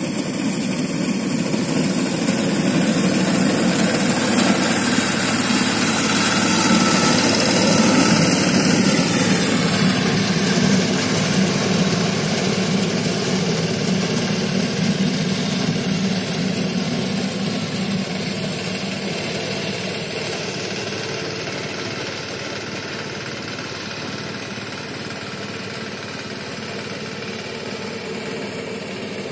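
BCS riding reaper's engine running steadily while it cuts paddy. It dips slightly in pitch about nine seconds in, then grows slowly fainter as the machine moves away.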